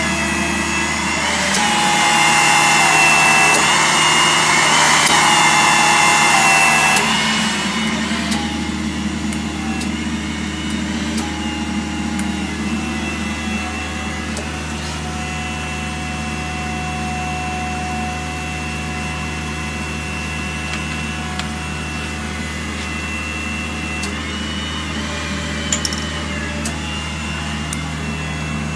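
Electric hydraulic pump unit driving a hydraulic torque wrench, running with a steady motor drone and whine whose pitch shifts in steps. It is louder, with a rougher hiss, from about two to seven seconds in, then settles to a steadier run, with a few sharp clicks near the end.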